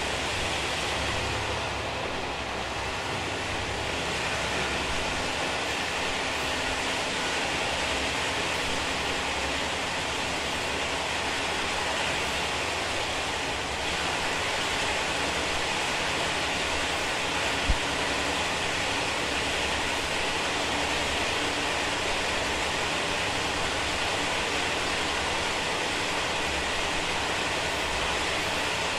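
Passenger car SPK32717 of a Taiwan Railway ordinary train running at about 50 km/h, most likely inside a tunnel: a steady, loud rushing roar of wheels on rail and moving air. One sharp knock about two-thirds of the way through.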